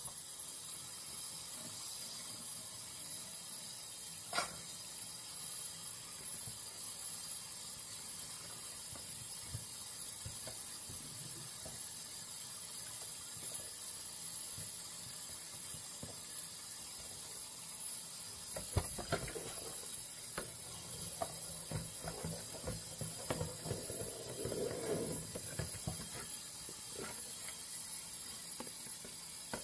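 Dishes being washed by hand in a soapy plastic dishpan in a stainless steel sink, over a steady hiss. There is one sharp knock about four seconds in, and from about two-thirds of the way in, busy scrubbing and splashing with dishes knocking.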